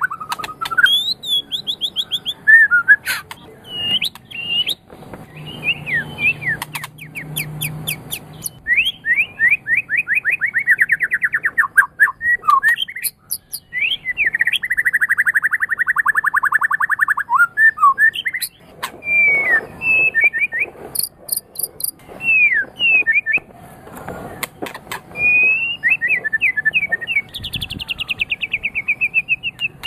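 White-rumped shama (murai batu) of the Medan type singing a long, varied song: fast trills that slide downward in pitch, clear whistled notes and sharp high chips, phrase after phrase with short breaks.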